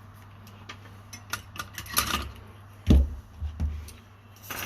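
Tools being handled on a workbench: scattered light clicks and taps, with a heavier knock about three seconds in and a couple of softer ones after it, over a steady low hum.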